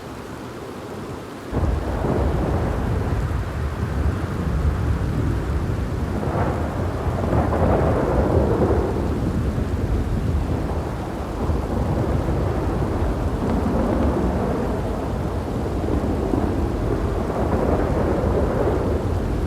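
Steady rain with rolling thunder. A low thunder rumble breaks in suddenly about a second and a half in, then swells again in the middle and near the end.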